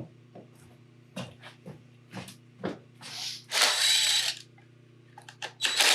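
Small power driver whirring in two short runs as it backs out the screws holding a Onewheel GT's fender deletes. Light clicks of tools and hardware come first.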